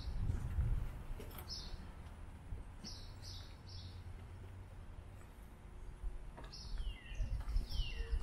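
Small birds chirping outdoors: short high chirps, a quick run of three about three seconds in, and a couple of downward-sliding calls near the end, over a low uneven rumble.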